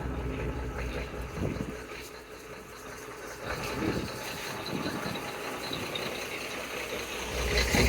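A heavy vehicle's engine running steadily at low revs, with faint voices in the background.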